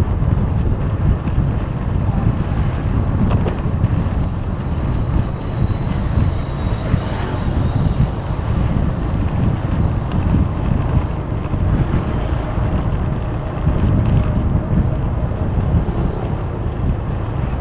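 Steady wind rush buffeting the microphone while travelling along a road, with vehicle engine and road-traffic noise underneath.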